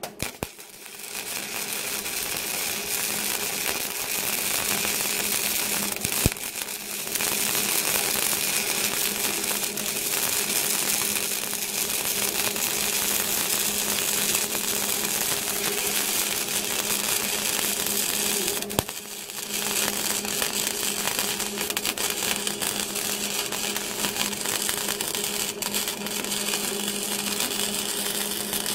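Flux-core wire-feed arc welding with a Hobart Handler 120: a steady crackling, sizzling arc with a low hum under it. It breaks off briefly twice, about six and nineteen seconds in.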